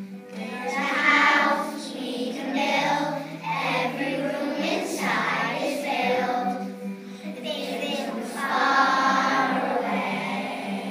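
A group of young children singing together in unison over a music accompaniment that holds steady low notes.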